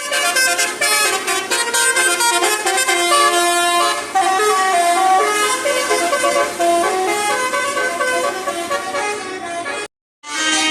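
Basuri multi-tone musical horn playing a tune of stepped notes, several tones sounding together. It cuts off about ten seconds in, and another horn tune starts just before the end.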